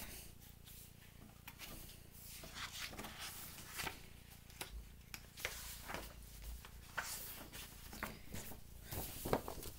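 A picture book being handled and its pages turned: irregular soft paper rustles and light taps.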